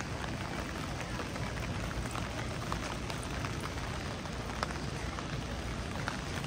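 Steady rain falling on a wet street: an even hiss with scattered sharp ticks of single drops.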